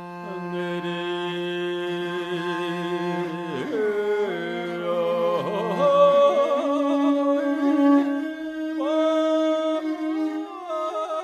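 Music interlude: a voice sings long, held, ornamented notes that waver and slide between pitches. A low sustained drone sounds underneath for the first half and drops out about six seconds in.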